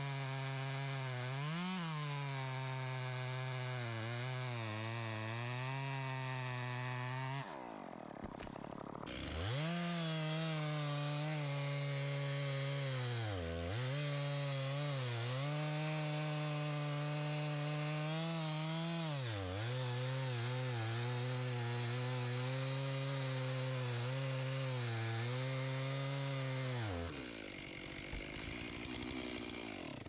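Two-stroke chainsaw held at high revs cutting through oak wood, its pitch sagging several times as the chain loads up in the cut. The throttle drops off briefly about eight seconds in, then comes back on, and falls away again near the end.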